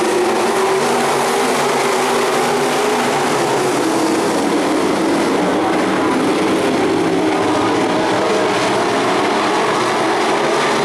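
Sport modified dirt-track race cars running in a pack, their engines a loud, steady drone of several engines at once with pitches shifting up and down.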